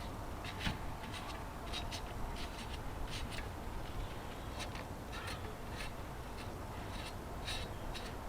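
Irregular short scraping strokes, about one or two a second, as epoxy filler on an alloy wheel is worked by hand, over a steady low hum.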